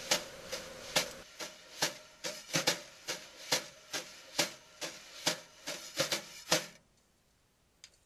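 A series of sharp clicks or taps, about two a second and slightly uneven, that stop about seven seconds in, followed by two quick clicks near the end.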